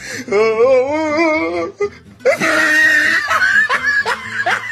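A voice wailing on a wavering pitch for almost two seconds, then a hissing noise with a run of short rising yelps, about three a second.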